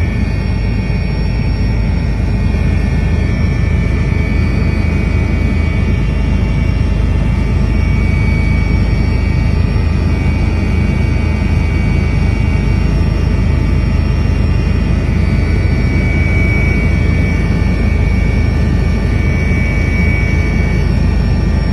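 Helicopter running steadily: a loud low rumble with a steady high whine over it.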